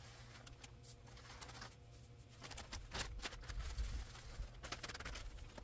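Granular fertilizer scattered by hand over a garden bed, the granules falling as faint scattered ticks and rustles on the soil and straw.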